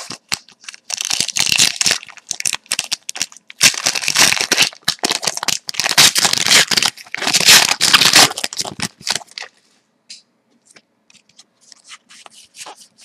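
A hockey card pack's wrapper being torn open and crumpled by hand: a run of loud, crackling rips and crinkles for about eight seconds, dropping to faint handling ticks of the cards near the end.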